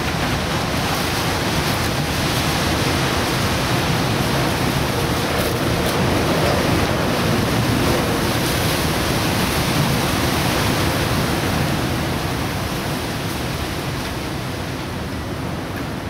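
Strong wind blowing hard: a dense, steady rush of noise that swells slightly in the middle and eases a little near the end.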